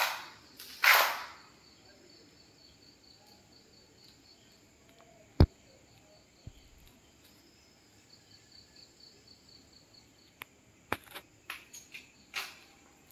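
Faint, evenly repeating high chirping of crickets under quiet room tone, broken by two short rustling swishes at the start, one sharp click about five seconds in, and a few small clicks and a brief swish near the end.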